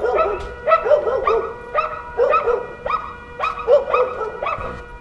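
Small dog, a poodle, yapping and barking over and over in quick clusters of short calls, a sign of an agitated dog.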